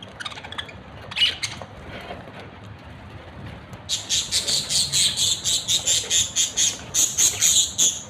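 Pet budgerigars chirping: scattered short chirps, then about halfway through a fast, loud run of sharp high calls, about five a second.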